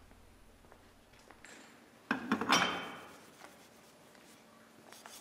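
A brief metallic clatter of small metal parts being handled, starting about two seconds in and dying away within a second, over quiet workshop background.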